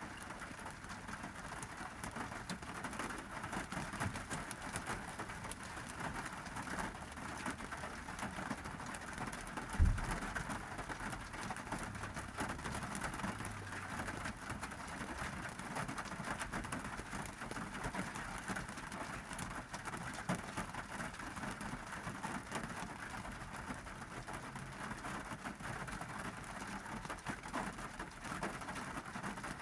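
Monsoon rain falling on a car's roof and windshield, heard from inside the car: a steady patter of many small drop strikes. A single low thump stands out about ten seconds in.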